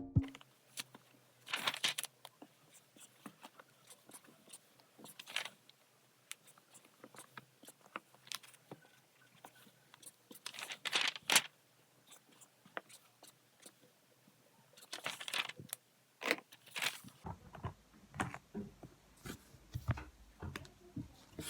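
Scattered small handling sounds: brief rustles and clicks, like paper and stationery being handled at a desk, over quiet room tone. The sounds come in a cluster near the middle and grow busier near the end.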